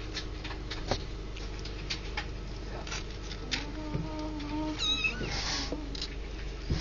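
Kittens mewing: a drawn-out mew around the middle and a short, high, wavering squeak about five seconds in, over light scratching and tapping of small paws.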